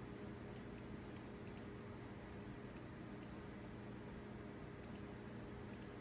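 Computer mouse buttons clicking: about ten short, sharp clicks, several in quick pairs, over a low steady hum.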